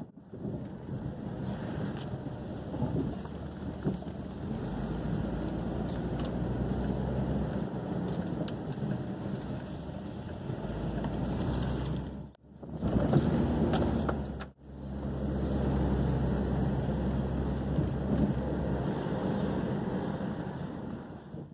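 Steady road and engine noise inside a moving car's cabin, a low rumble that drops out twice for a moment a little past halfway.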